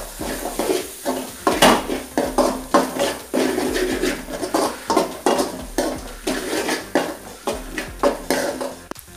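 A steel spoon scraping and clinking against an aluminium kadai as a thick onion-tomato masala is stirred, in irregular strokes two or three times a second.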